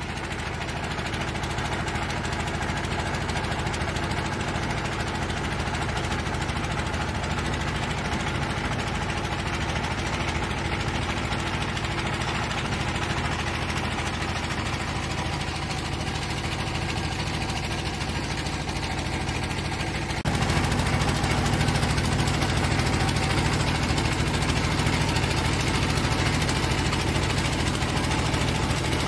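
Engine running steadily at a constant speed, a low even hum. About two-thirds of the way through it cuts to a louder stretch of the same steady running.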